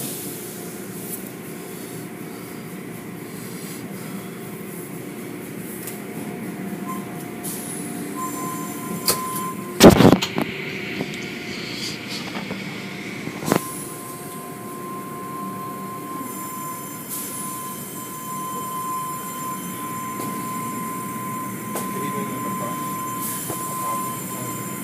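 Automatic car wash machinery running, with cloth brushes and hanging strips sweeping over a minivan under water spray. There is a cluster of loud bangs about ten seconds in and one more a few seconds later, followed by a steady high whine.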